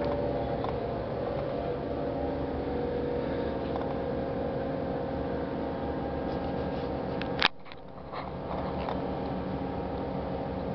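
Steady hum of the pontoon bridge's hydraulic winch machinery pulling the barge back into place on its cable. A sharp click comes about seven seconds in, and the hum briefly drops away after it.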